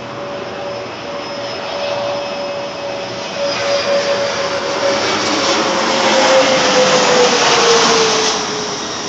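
Jet airliner on landing approach passing low overhead. Its engine noise swells to its loudest about six to eight seconds in, with a steady whine that drops in pitch as the plane passes, then begins to fade.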